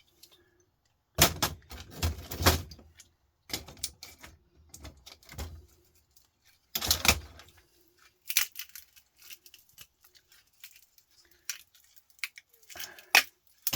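Irregular metallic clinks, knocks and rattles of hand tools and parts as components are pried off a computer power supply board. The busiest clatter comes about a second in and again about seven seconds in.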